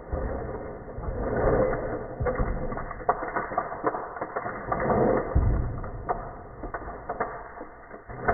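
Hand-cranked 3D-printed auger turning inside a PVC-pipe snack dispenser, churning through hard-shelled candies with a rattling, clicking grind. The grind swells louder twice, about a second and a half in and again near five seconds.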